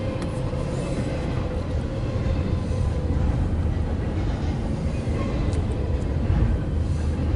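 CSX double-stack intermodal freight train rolling past, a steady rumble of wheels on rail with a faint steady hum above it, heard through the glass from inside a car.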